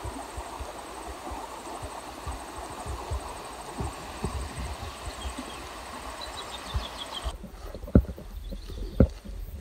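Outdoor rumble and handling noise on the microphone with scattered low thumps. About five seconds in, a bird gives a short run of descending notes. Near the end, two louder thumps land about a second apart.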